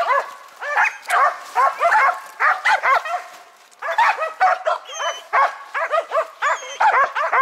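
Karelo-Finnish laikas barking rapidly and nonstop in high-pitched yips, baying at a marten up in the tree, with a brief lull about three seconds in.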